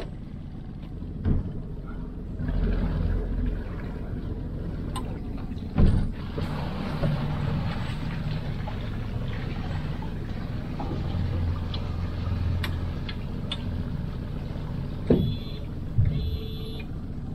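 Four-stroke outboard motor running steadily at low speed as a small skiff pulls away, with a few sharp knocks on the boat along the way. Near the end there is a brief high tone.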